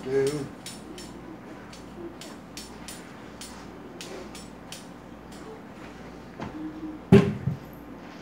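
Kitchen knife cutting up a raw potato on a cutting board: light, quick strikes about three a second that thin out after about five seconds. A single heavy thump comes near the end, something set down hard on the counter.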